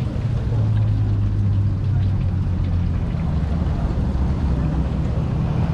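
A steady low machine hum, like a motor running, under a constant noisy background.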